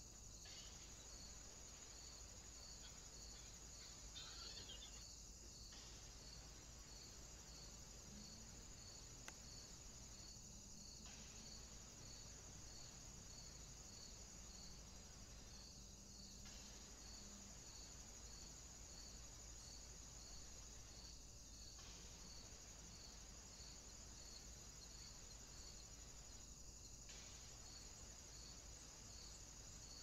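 Faint, steady high-pitched insect chirring, with a regular pulse about twice a second, in a hot summer woodland.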